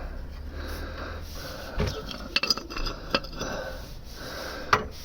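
Metal tool scraping and clinking against a stuck spin-on oil filter's steel canister in an attempt to punch a hole through it, with several sharp knocks in the second half.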